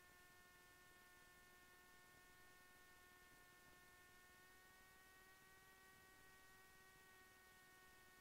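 Near silence: a faint, steady, high-pitched hum with several evenly spaced overtones.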